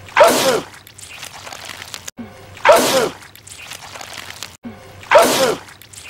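A man's loud, wet sneeze, the same sneeze repeated three times about two and a half seconds apart, each a sudden burst with a falling cry in the voice.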